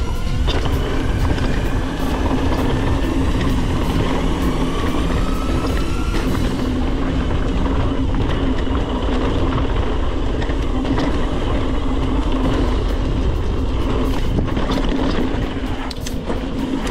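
Mountain bike riding down a dirt trail: steady tyre and wind noise, with sharp rattles and clacks from the bike over bumps, thickest near the end.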